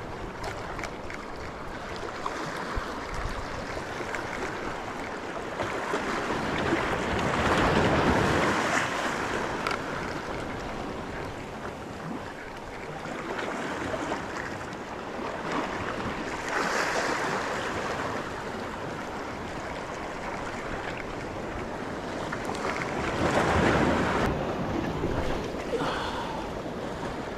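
Small sea waves washing in the shallows, swelling three times into louder surges, with wind buffeting the microphone.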